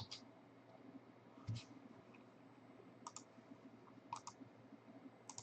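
Faint computer mouse clicks, mostly quick double clicks, coming about every second or so.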